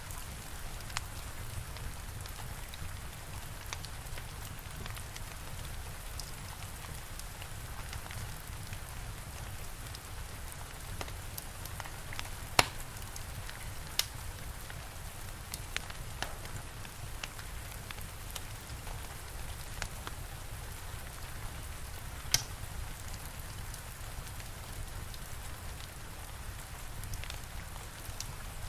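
Steady rain with a fire crackling, a low rumble underneath. Small crackles throughout, with a few sharper pops from the fire about halfway through and again later.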